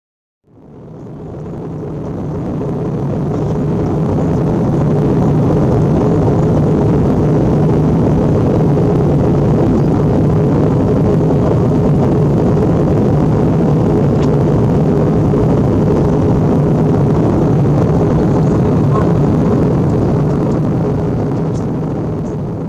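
Steady cabin noise inside an Airbus A320 airliner in flight: the deep, even rumble of engines and airflow with a constant low hum, fading in over the first few seconds and fading out near the end.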